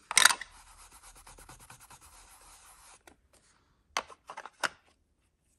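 Ink blending tool scrubbing ink through a stencil onto paper: a sharp scrape at the start, then quick light rubbing strokes for about three seconds, and a few sharp taps near the end.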